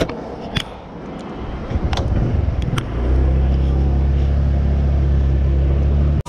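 Honda motorcycle engine coming to life and settling into a steady idle about three seconds in, after rubbing and handling noise on the handlebar-mounted camera.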